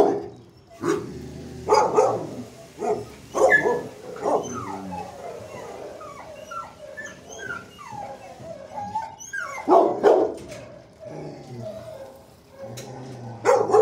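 Dogs barking in shelter kennels: loud barks in bursts in the first few seconds, again around ten seconds in and at the very end, with fainter high yips and whines in between.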